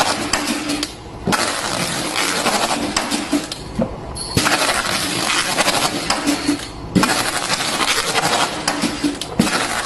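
Carton taping machine running with boxes passing through one after another: a noisy rush for each box, broken by brief pauses about every three seconds, with a sharp knock as each new pass starts.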